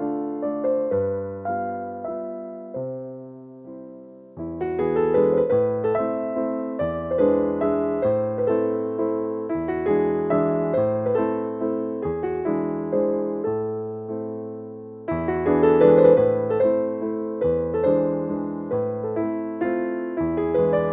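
Background music played on an electric piano: a soft, calm piece of sustained chords over a bass line, fading briefly and coming back in about four seconds in.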